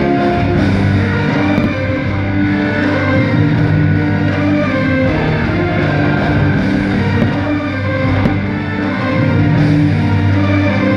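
Loud rock-style music with guitar: the soundtrack of a fireworks show, playing steadily.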